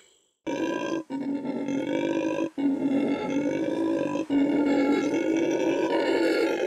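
Red howler monkey howling: a loud, deep, continuous roar that starts about half a second in and is broken by three brief pauses.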